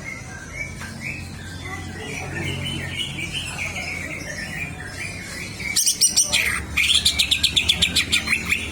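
Green leafbird (cucak hijau) singing: a continuous, varied warble, then from about six seconds in a louder burst and a fast run of sharp repeated notes, about seven or eight a second. The bird is in full song, the state that keepers call 'on fire'.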